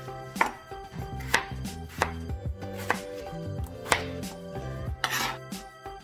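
Chef's knife chopping a peeled potato on a plastic cutting board: about five sharp knocks roughly a second apart. Near the end comes a longer scraping swish as the cut pieces are swept off the board. Background music plays underneath.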